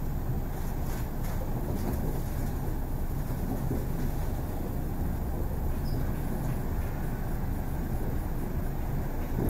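Cabin running noise of an ED4M electric multiple unit under way: a steady low rumble of wheels on rail, with a few faint clicks about a second in.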